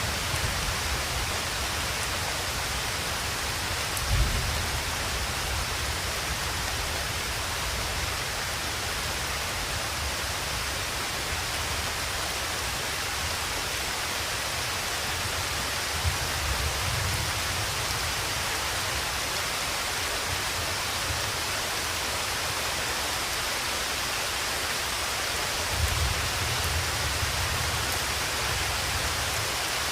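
Steady, continuous rainfall hiss, with distant thunder rumbling low three times: about four seconds in, around the middle, and near the end.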